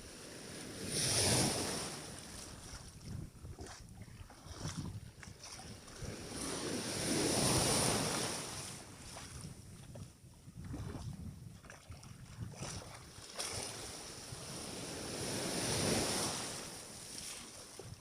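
Sea waves washing in on the shore, three slow surges that swell and fade about every seven seconds.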